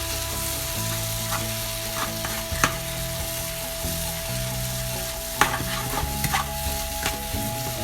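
Crumbled tofu and beaten egg sizzling in hot oil in a frying pan while being stirred, the spatula giving a few sharp clicks and scrapes against the pan.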